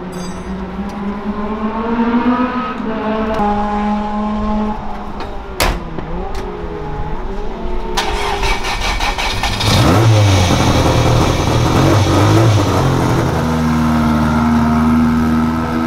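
Toyota KP61 Starlet race car's engine running, its pitch rising and falling with the revs. About eight seconds in it turns much louder and rougher with a deep rumble. A single sharp knock sounds about six seconds in.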